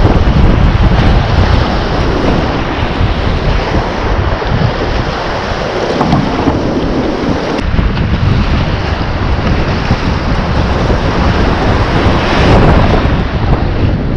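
Loud, continuous rushing of whitewater rapids around a kayak, heard from the boat with heavy rumble on the microphone.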